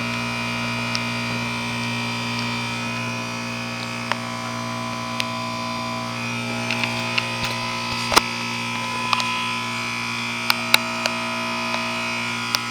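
2004 Goodman 10 SEER 3.5-ton heat pump outdoor unit running its defrost cycle: a steady electrical hum with a hiss. Sharp ticks of water drops come now and then in the second half.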